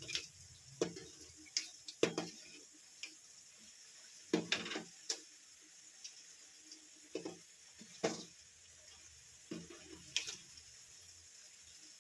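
Irregular clinks and knocks of kitchen utensils against a bowl or pan, mixed with short wet, splashy sounds of batter, about a dozen over the stretch. A faint steady hiss lies beneath.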